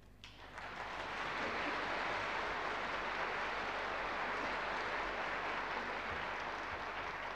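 Audience applauding; the clapping starts a moment in, builds within about a second and then holds steady.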